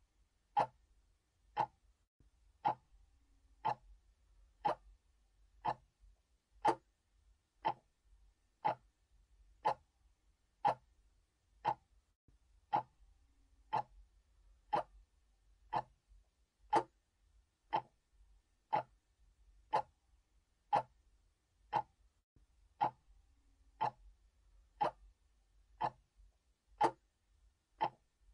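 Mechanical clock ticking steadily, about one tick a second, each tick a sharp even click.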